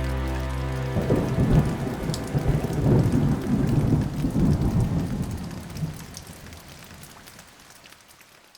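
A held musical chord cuts off about a second in, giving way to a rumble of thunder over falling rain that gradually fades away.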